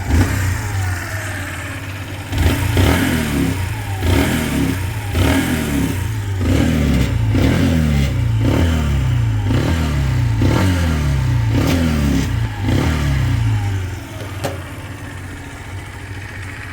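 A Chinese 125cc motorcycle engine is blipped on the throttle about once a second for around ten seconds, then drops back to idle. A rattle from somewhere on the bike, not the tank mounts, runs through it.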